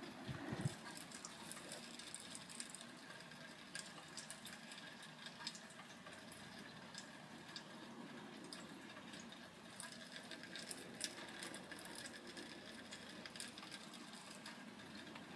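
Faint light rain pattering and dripping, with scattered sharp drip ticks.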